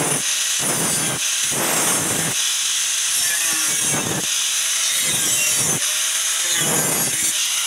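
Handheld angle grinder with a cut-off disc cutting through a square steel tube: a steady high whine and grinding hiss, with the cut biting harder in lower-pitched surges roughly once a second.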